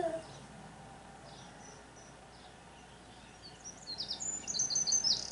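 Birdsong played through a television's speaker: rapid high chirps and trills start about three and a half seconds in and get louder. Before that there is only a faint background, after a brief falling pitched sound at the very start.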